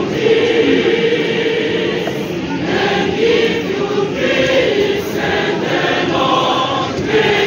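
A large mixed choir singing, holding sustained notes that move from chord to chord.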